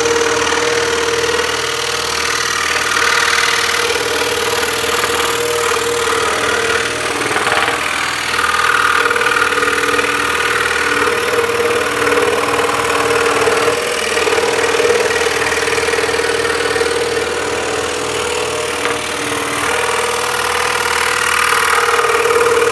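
Axminster Trade scroll saw running with a steady hum, its blade reciprocating as it cuts through a thick block of wood that is being turned on the table.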